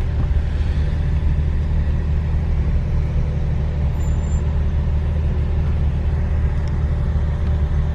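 Steady low rumble of a car's engine and road noise heard from inside the car as it moves slowly in traffic.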